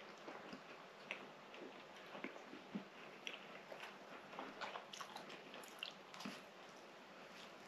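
Faint chewing of soft baked fatayer bread: many small mouth clicks and smacks, with another bite into the pastry about six seconds in.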